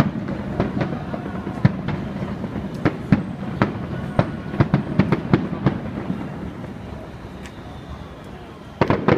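Aerial firework shells bursting in a rapid, irregular series of sharp bangs over a steady low rumble. The bangs thin out about six seconds in, and a fresh cluster of loud bangs comes near the end.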